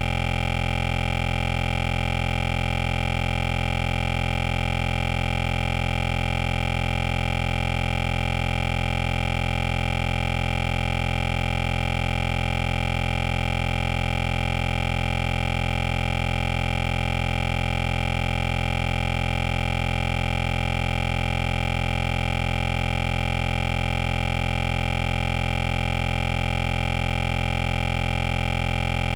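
A loud, perfectly steady electronic hum made of several fixed tones, deepest and strongest at the bottom, with no change in pitch or level.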